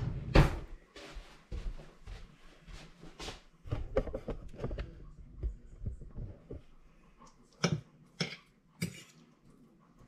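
A metal fork on a ceramic plate: a knock about half a second in, soft scraping and tapping, then three sharp clinks near the end as a bite of shepherd's pie is cut.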